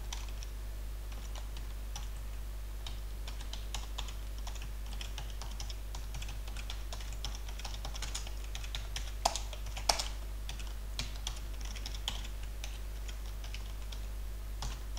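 Typing on a computer keyboard: quick, irregular key clicks in runs, with two louder keystrokes a little past the middle, over a steady low hum.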